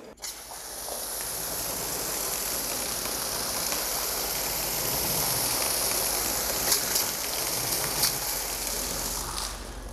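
McKillan's garden-hose foam gun spraying soapy water through its open, non-adjustable nozzle onto a car's side panel: a steady hissing spray that cuts off near the end.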